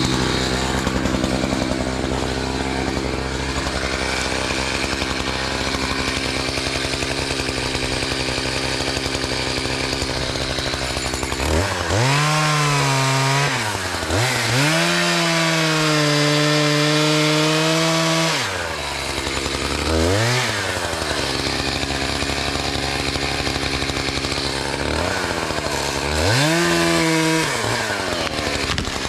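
Two-stroke chainsaw running at a low steady speed, then throttled up to full revs for several seconds partway through, followed by two shorter bursts of revving. This is the saw cutting into a dead pine tree to fell it.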